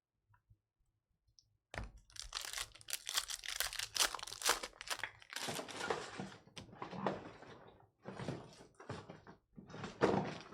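Foil trading-card pack wrapper being torn open and crinkled, with the cards inside being handled: a run of crackling rustles that starts about two seconds in.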